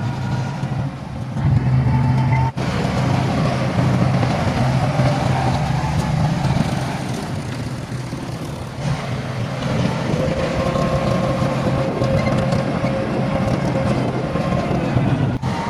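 Heavy diesel engine of earthmoving machinery running steadily with a deep hum, with a brief break about two and a half seconds in. A faint steady whine joins about ten seconds in.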